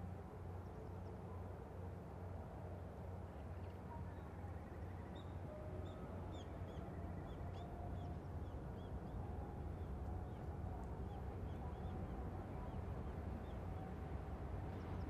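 Distant Boeing 787-8 jet engines at taxi thrust: a faint low rumble with a light whine that grows slowly louder as the airliner taxis closer. Small birds chirp over it in many short calls from about three seconds in.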